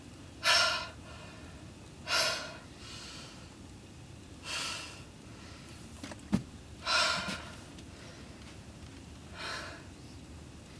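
A woman breathing in heavy, audible gasps, five breaths about two seconds apart. A single sharp click or knock about six seconds in.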